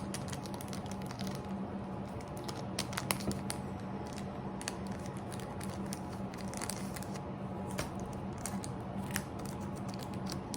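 Pokémon card booster pack wrapper being crinkled and torn open by hand: scattered sharp crackles and rustles over a steady low hum.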